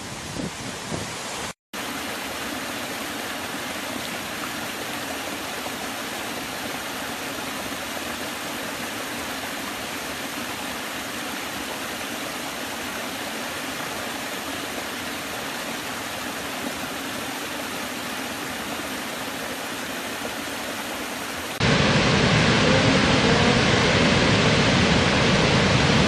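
Rushing water from waterfalls, in three cuts. First a river pours over a cliff edge, broken by a momentary dropout under two seconds in. Then a small woodland stream splashes steadily over rocky steps for about twenty seconds, and near the end the much louder, deeper rush of a large waterfall takes over.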